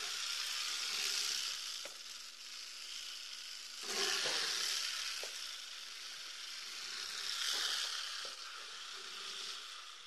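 Porcupine rattling its quills: a continuous dry, hissing rattle that swells and fades, loudest about one, four and seven and a half seconds in. The quill rattle is the porcupine's defensive warning.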